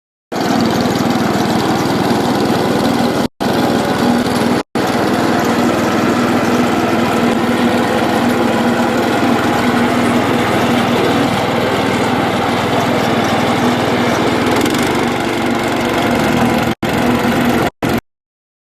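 Engine of an asphalt recycling machine running steadily with an even drone, broken by a few brief drop-outs.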